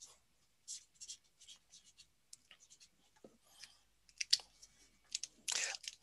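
Felt-tip marker writing on paper: faint, scattered short scratches and ticks, with a brief soft rush of noise near the end.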